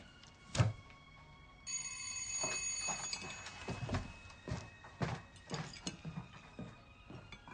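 An electric bell rings, starting suddenly about two seconds in, loudest for about a second and then ringing on more faintly. A sharp knock comes just before it, and soft knocks and clinks sound through the rest.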